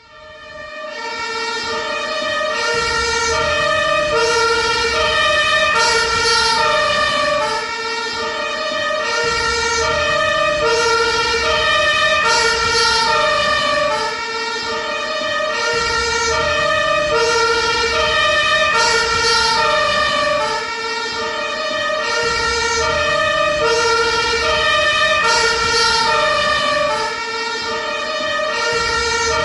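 Ambulance siren sounding a two-tone hi-lo wail, switching evenly between a lower and a higher pitch about every two-thirds of a second, over a low rumble. It fades up over the first few seconds, and the rumble drops away briefly every six or seven seconds.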